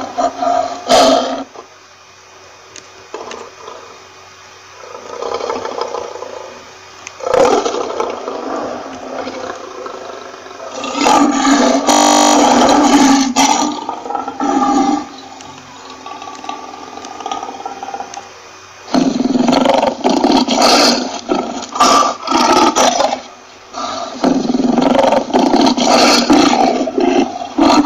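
Lion roaring: a series of loud, deep roars, each lasting a few seconds, with quieter pauses between them; the longest comes around the middle and two more follow near the end.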